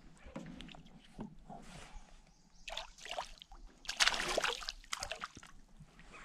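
Water splashing in short bursts as a hooked panfish thrashes at the surface beside a kayak and a hand grabs at it in the water, the loudest splashes about three and four seconds in.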